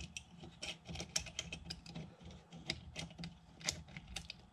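Light, irregular clicks and taps of small metal parts being handled and fitted by hand: a short screw, washer and DRO bracket going onto a lathe tailstock, with a faint low hum underneath.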